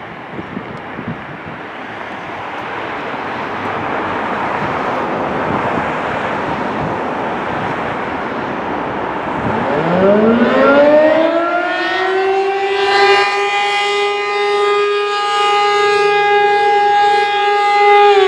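ACA P-15 warning siren winding up for an attack test: a rushing whoosh of air builds for about nine seconds with no clear tone. About halfway in a tone sweeps up and settles into a steady, loud wail.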